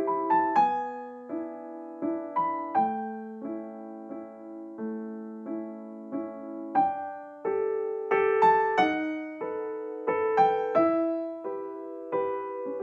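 Background music: a gentle piano melody of single struck notes and chords at a slow, even pace.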